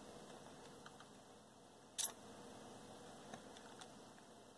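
Faint room tone with a single sharp click about two seconds in.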